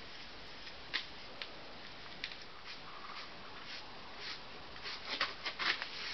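Short scratchy strokes of a dry hand brush sweeping over a freshly carved cement-mortar surface, clearing crumbs from the grooves. The strokes are sparse at first and come quicker and louder near the end.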